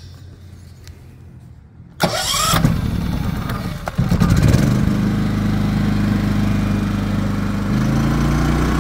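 A Champion dual-fuel inverter generator, running on propane, starts up about two seconds in and settles into a steady run. Its engine note steps up in pitch near the end as it speeds up.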